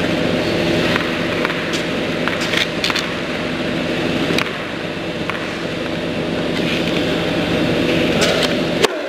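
A loud, steady hum with a few sharp cracks of tennis rackets hitting the ball during a doubles point. Just before the end the hum cuts off abruptly, right after a sharp crack.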